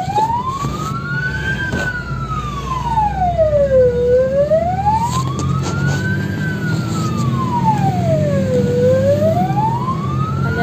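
Fire engine siren on a slow wail, its pitch rising and falling in long sweeps about every four to five seconds, over the low rumble of the truck's engine, heard from inside the cab.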